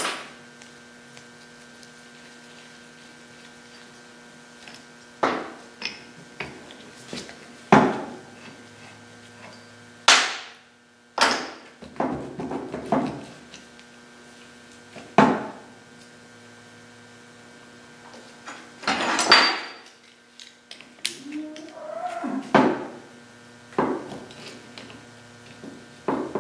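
Sharp metal clanks and knocks from hand tools working a seized lower kingpin bushing out of a Dana 60 steering knuckle. There are about nine separate strikes a few seconds apart, some ringing briefly, with rattling between them.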